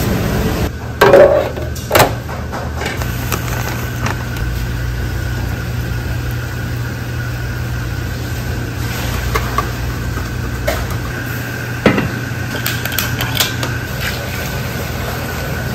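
Metal pots, bowls and utensils clanking in a kitchen: two loud clatters about one and two seconds in, a sharp knock later, and light taps near the end, over a steady low machine hum.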